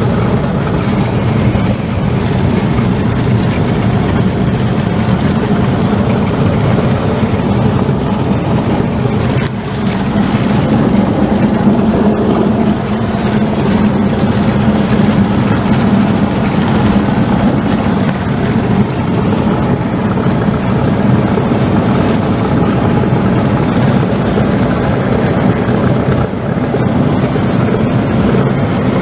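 Cessna 172's piston engine and propeller droning steadily in flight, heard inside the cabin, with a brief dip in level about a third of the way through.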